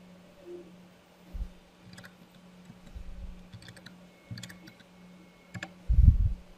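Scattered computer mouse clicks and keyboard keystrokes, a few at a time, over a faint steady hum. A louder low thump comes near the end.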